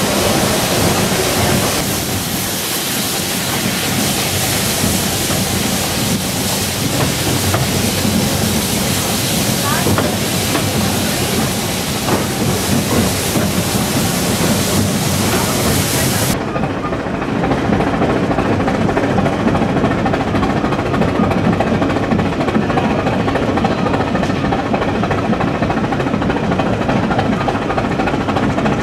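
Brienz Rothorn Railway rack steam locomotive setting off and pushing its coaches uphill. A strong steam hiss cuts off abruptly about halfway through, leaving the steady clatter and rumble of the running train.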